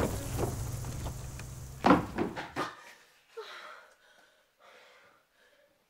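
A heavy thud about two seconds in, followed by a short scuffle of smaller knocks. After it the background cuts to a quiet room with only faint rustling.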